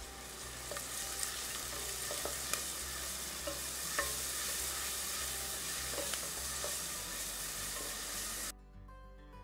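Sliced onions and ginger-garlic paste sizzling in hot oil as a wooden spatula stirs them, tapping and scraping the pan now and then. Near the end the sizzle cuts off suddenly and background music takes over.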